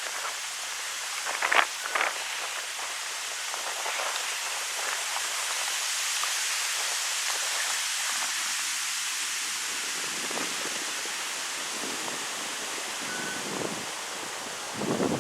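Wind blowing steadily through birch trees, an even hiss of rustling leaves, with a few brief gusts hitting the microphone about two seconds in and near the end.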